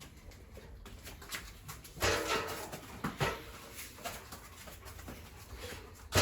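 A dog whining a few times, the loudest whine about two seconds in and another at the very end.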